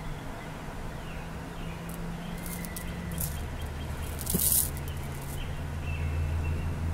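Faceted glass crystal teardrop beads clicking and shifting in a palm as fingers move them, with a short rattle about four seconds in, over a steady low hum.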